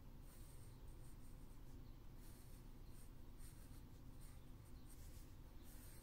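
Faint scratching of a pencil on sketchbook paper, a series of short, irregular strokes as wing veins are drawn.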